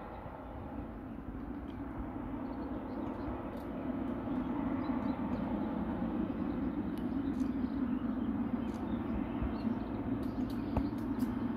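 Boeing 777F freighter's GE90 jet engines, heard as a distant rumble and roar from the runway, growing louder about four seconds in as the aircraft powers up for its take-off roll.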